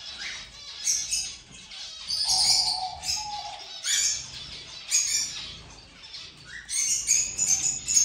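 A flock of zebra finches chattering, their short high chirps coming in busy clusters every second or so.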